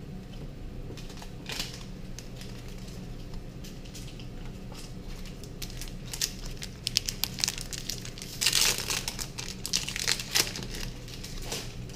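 Foil Pokémon booster pack wrapper being crinkled and torn open, with sparse crackles at first that thicken into a dense rustle. The loudest tearing comes about two-thirds of the way through, with another burst shortly after.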